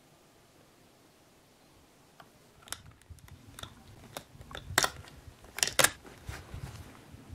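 Near silence for about two seconds, then a run of sharp clicks and knocks close to the microphone, the loudest three coming between about five and six seconds in, over a low rumble.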